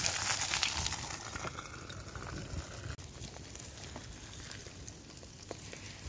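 Burgers and onions sizzling in a frying pan over a wood-burning camp stove. The sizzle drops away about a second and a half in, leaving a quieter hiss with a few faint ticks.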